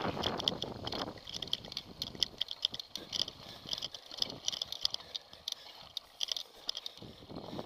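Mountain bike on a dirt trail, heard from the rider's own bike: quick, irregular rattling clicks throughout, with a rumble of wind and tyres in the first second or so.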